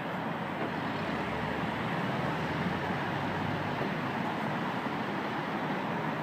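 Steady road traffic noise from cars and trucks passing on a multi-lane city street, with a deeper engine rumble through the first few seconds.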